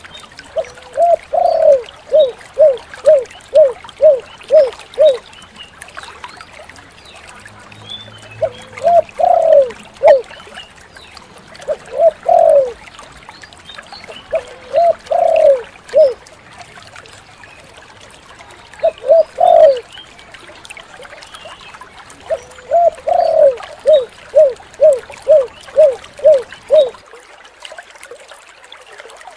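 Spotted dove (tekukur) cooing: a run of about eight even, evenly spaced coos, then short phrases of two or three notes, and another long run of coos near the end. A faint steady hiss lies underneath.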